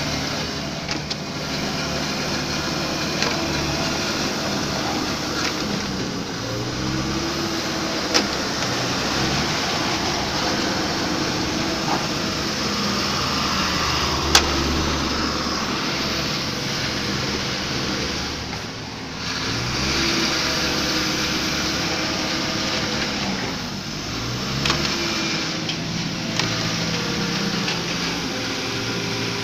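Diesel engine of an excavator working, its pitch rising and falling again and again as it takes and releases hydraulic load, with a few sharp metallic clanks.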